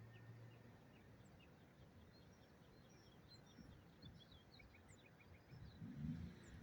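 Faint birds chirping, many short high chirps scattered over a low background hum, with a brief low rumble about six seconds in.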